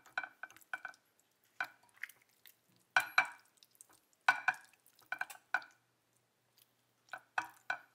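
Hands working olive oil into raw boneless chicken thighs in a glass baking dish: wet squelching and slapping of the meat as the pieces are picked up, rubbed and turned, in short bursts separated by pauses.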